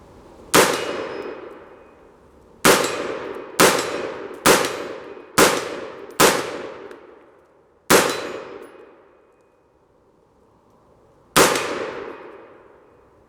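AR-pattern rifle fired eight times at an uneven pace, each shot followed by the long metallic ring of a hit on a scrap steel target.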